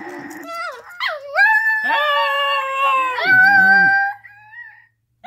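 Two Alaskan Klee Kai, one a puppy, howling together in long held howls, with a short yelp about a second in and a lower grumbling stretch before the howls fade out near the end.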